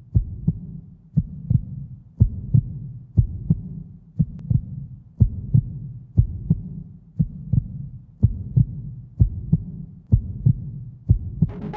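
Heartbeat sound effect: a steady lub-dub double beat about once a second over a low hum.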